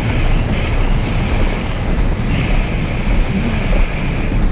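Wind rushing over the camera microphone, mixed with the rumble of an alpine coaster sled's wheels running along its steel tube rail at speed. A higher hiss swells twice in the noise.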